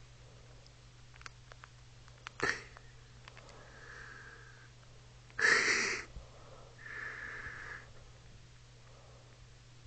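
A person breathing through the nose close to the microphone. There is a short sniff about two and a half seconds in, a louder half-second sniff near the middle, and two softer whistling breaths through the nose.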